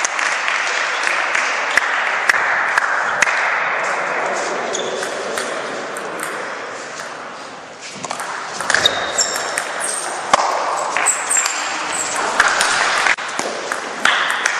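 Table tennis ball clicking off bats and table during rallies, sharp short ticks in quick runs. Applause dies away over the first several seconds.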